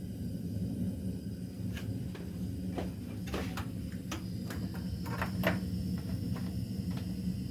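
Scattered light clicks and knocks of kitchen handling around a frying pan, starting about two seconds in, over a steady low hum.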